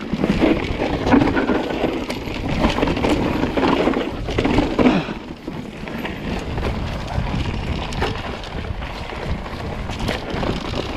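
Mountain bike ridden fast down a rough jump line: a rushing, rattling noise of tyres on dirt and rock with scattered sharp knocks from the bike. The noise is loudest through the first five seconds and dips briefly after.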